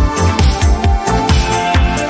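Upbeat electronic background music with a steady beat.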